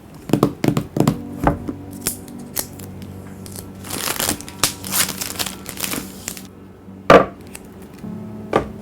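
Smartphone retail box and packaging being handled for an unboxing: a run of sharp taps and clicks, then a couple of seconds of rustling and sliding, and a single sharp knock about seven seconds in, the loudest sound.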